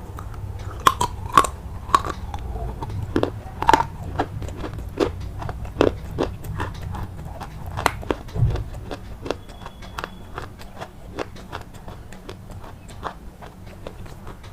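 Crisp crunching: a rapid run of sharp crackling snaps from something brittle being crushed, loudest and densest in the first half and thinning out toward the end, over a steady low rumble.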